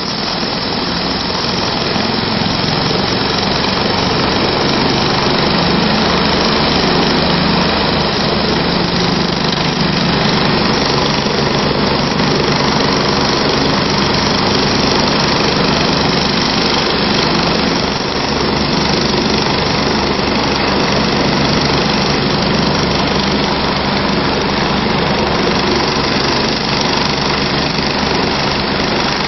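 Medical helicopter running on its helipad without lifting off: a loud, steady turbine and rotor sound.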